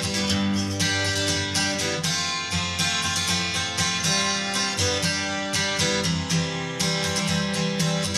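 Background music with a strummed guitar, chords struck in a quick steady rhythm.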